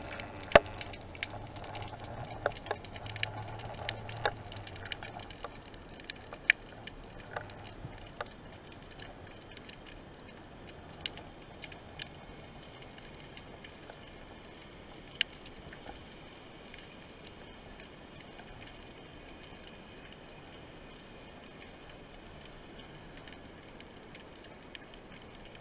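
Underwater ambience heard by a submerged camera: a faint steady hiss with scattered sharp clicks, several in the first few seconds and fewer later on, and a low hum that fades about five seconds in.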